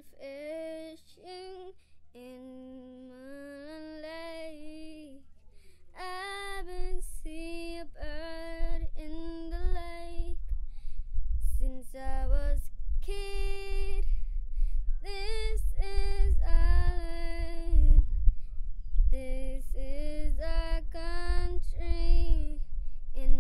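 A female voice singing a slow song line by line, in clear held phrases. A low rumble comes in underneath about six seconds in and stays, making the rest louder.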